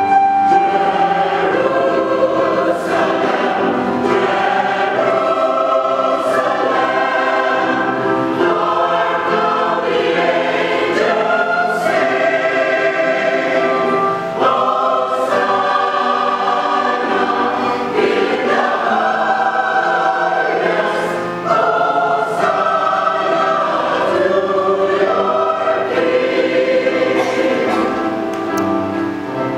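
Mixed church choir of men and women singing an anthem in sustained phrases.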